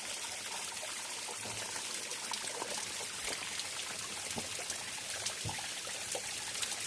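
Water of the tall Nojoqui Falls dropping and splashing in a steady hiss.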